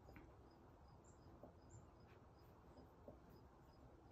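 Near silence with faint snuffling from a four-day-old standard poodle puppy sniffing a basil plant, a few soft short sniffs.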